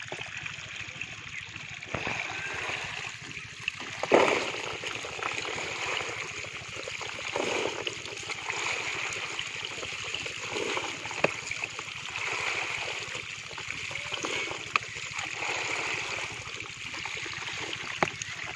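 Water running steadily down a mud channel into a wicker basket, with small puti fish splashing in it. Now and then a sharp knock or clatter as fish are scooped out with a plastic colander and tipped into a plastic crate.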